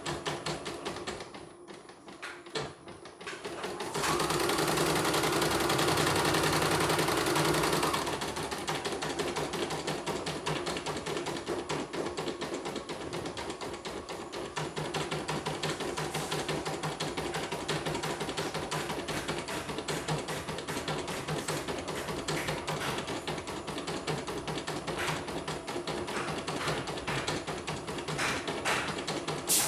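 Portable computerized embroidery machine stitching, a rapid, steady clatter of needle strokes. About four seconds in there is a louder stretch of noise lasting some four seconds before the even stitching rhythm settles in.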